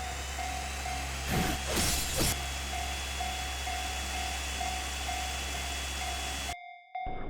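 Japanese level-crossing alarm ringing its repeated single-tone clang, about two and a half rings a second, over the steady rushing noise of a train going past. Two louder whooshes come about one and a half to two seconds in. The train noise cuts off suddenly near the end while the crossing bell keeps ringing.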